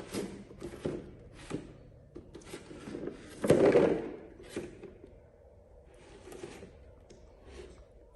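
Irregular short rustles and knocks, the loudest a longer noisy burst about three and a half seconds in.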